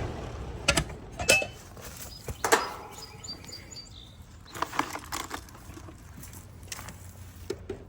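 Scattered sharp clicks and metallic clinks as the electrical disconnect and wiring of a central air conditioner's outdoor condenser unit are handled.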